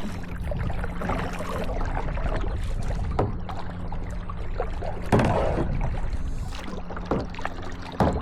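Kayak paddle strokes splashing in the water, a sudden splash roughly every two seconds, over a steady low hum.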